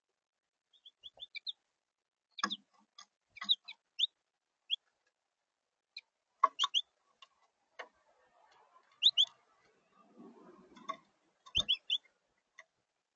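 Small songbirds giving short, quick chirps, scattered through the stretch, with a few sharp clicks or taps among them and a brief rustle a little before the end.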